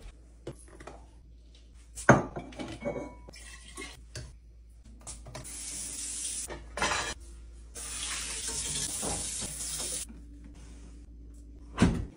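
Kitchen tap running into a sink while breast pump parts and bottles are rinsed, with clinks of plastic and glass. A sharp clatter comes about two seconds in and a loud knock near the end.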